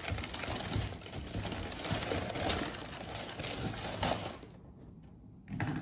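Shoe-box tissue paper rustling and crinkling as it is pulled and handled, stopping about four and a half seconds in.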